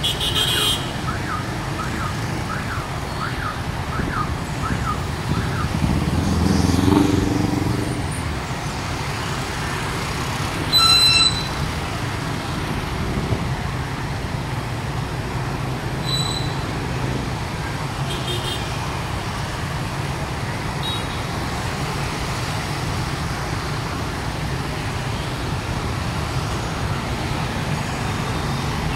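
Dense rush-hour traffic of motorbikes, cars and buses crawling in a jam: a steady hum of many idling and creeping engines. A chirping alarm-like tone repeats about twice a second for the first few seconds, an engine swells louder about six seconds in, and a short, sharp horn blast about eleven seconds in is the loudest sound, with a few fainter horn beeps after it.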